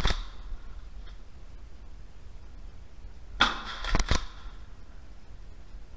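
Two short bursts of sharp clacks, about three and a half seconds apart. The second ends in two quick cracks.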